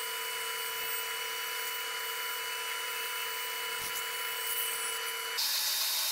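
Bandsaw running steadily with a constant whine while it cuts a curved finger-pull scoop into a plywood drawer front. About five seconds in the sound switches to the steady hiss of an oscillating spindle sander.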